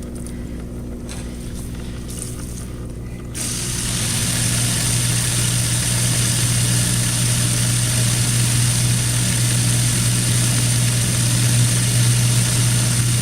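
KitchenAid dishwasher running with its kick plate off: a low steady hum, then a little over three seconds in its pump motor starts with a louder steady hum and a rush of water, which carries on steadily.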